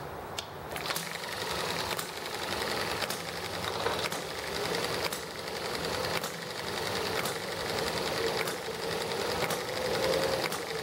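Eachine ET1 (M90) model hit-and-miss petrol engine, pull-started by a cord on its flywheel, catching within the first second. It then runs free with no load: a fast, even mechanical clatter, with a sharp firing stroke about once a second.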